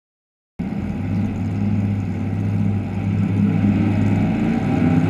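Drag-racing car's engine running loudly and steadily, a low drone with no revving, starting abruptly about half a second in and cut off sharply at the end.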